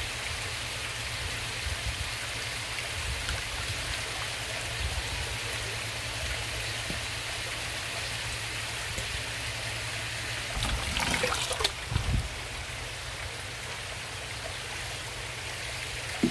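Koi pond water running and trickling steadily, with a low rumble underneath and a few brief louder sounds about eleven to twelve seconds in.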